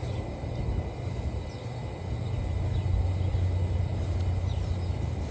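Outdoor background noise: a steady low rumble that grows a little louder about two seconds in.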